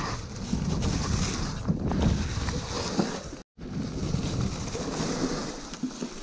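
Wind buffeting the camera microphone over the rumble and rattle of a mountain bike riding a dirt trail, with scattered knocks from the ground. The sound cuts out completely for an instant about halfway through.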